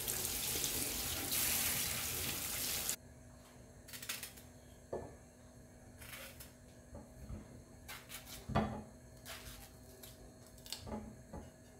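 Water running from a tap into a stainless steel saucepan for about three seconds, then cutting off abruptly. After it come scattered knocks and scrapes of a knife peeling and slicing a plantain on a plate; the loudest knock is about two-thirds of the way through.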